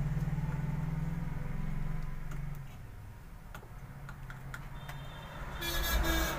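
A steady low motor drone that fades out about two and a half seconds in, with a few faint clicks, then a short burst of hissing noise near the end.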